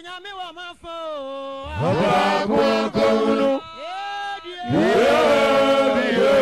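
Sung vocal music: a lone voice at first, then louder, fuller passages where several voices sing together, about two seconds in and again near the end.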